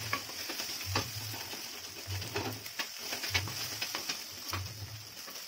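Wooden spatula stirring and scraping scrambled egg around a hot brass kadhai, with a steady frying sizzle and a sharp scrape or tap of the spatula on the pan about once a second.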